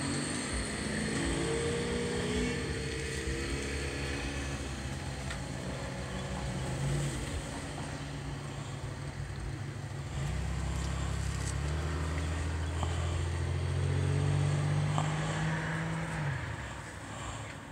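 A motor vehicle engine running close by: its pitch climbs over the first few seconds, then it settles into a louder, steady hum that drops away about sixteen seconds in.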